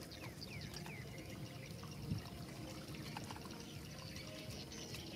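Two dogs lapping and slurping wet food from plastic bowls: a steady run of small wet smacks and clicks, with one louder smack about two seconds in.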